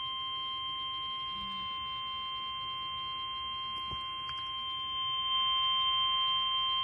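NOAA Weather Radio warning alarm tone: one steady, unbroken electronic tone held throughout, a little louder from about five seconds in, announcing a severe thunderstorm warning.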